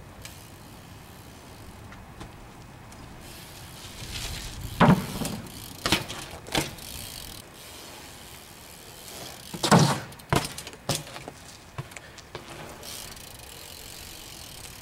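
BMX bike clattering: several sharp knocks and clunks, the loudest about five and ten seconds in, over a steady background hiss.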